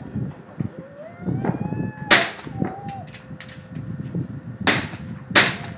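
.22 rifle firing three sharp shots: one about two seconds in, then two more about two-thirds of a second apart near the end.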